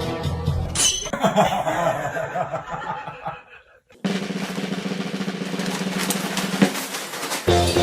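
Background music with drums, broken by a brief near-silent gap about three and a half seconds in.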